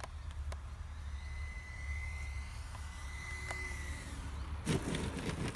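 Electric ducted fan of a Sebart Mini MB-339 RC jet giving a faint, steady high whine, throttled back on landing, over a low rumble of wind on the microphone. Near the end comes a sudden burst of rustling and clicking.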